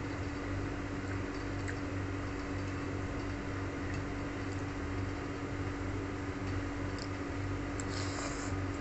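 Instant noodles being eaten from a spoon over a steady machine hum, with a short slurp about eight seconds in as a spoonful of noodles is sucked in.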